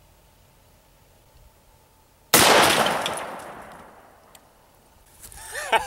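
A single rifle shot from an AR-15 chambered in 6.8 SPC II, about two seconds in, its report echoing and fading away over about a second and a half.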